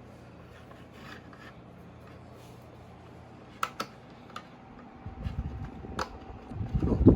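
A few sharp small clicks of parts being handled and fitted inside a small portable speaker over a faint steady hum. In the last two seconds a dense low rubbing, rustling noise builds up, loud and close.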